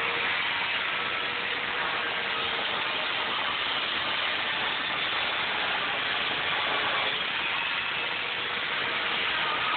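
Electric chainsaw running steadily, shaving thin layers off a foam sculpture.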